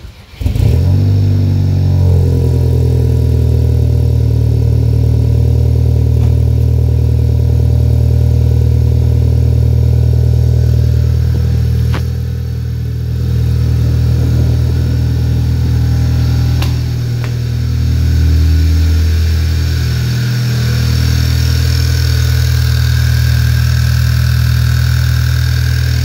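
Volkswagen MK6 GTI's turbocharged 2.0-litre four-cylinder, fitted with a bigger turbo, cranking briefly and catching about half a second in on a cold start, then idling steadily. A high whine from the turbo grows stronger in the last few seconds.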